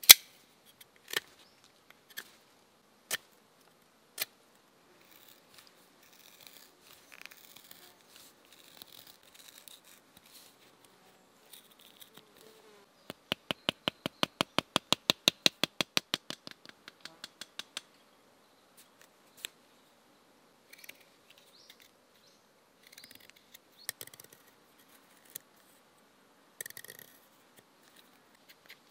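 Knife whittling a green, bark-covered branch: a few sharp knife cuts about a second apart, light scraping, then a rapid, even run of taps for about five seconds as the knife is beaten along the bark to loosen it for a slip-bark whistle, followed by scattered small cuts into the peeled wood.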